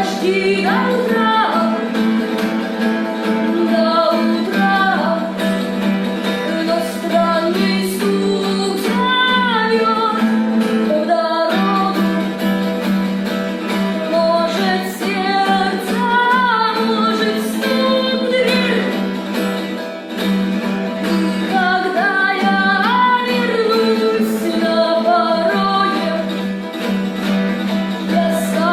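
Music: a song with a singing voice over plucked guitar, with a steady low note held under most of it.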